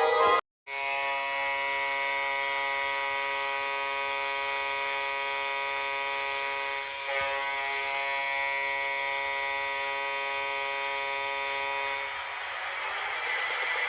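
NHL arena goal horn sounding one long steady blast, a held multi-tone chord, starting just under a second in and stopping about twelve seconds in.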